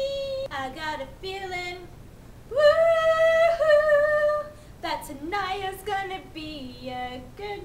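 A woman singing solo without accompaniment, her voice sliding between notes in a showy style, with a loud long held note near the middle.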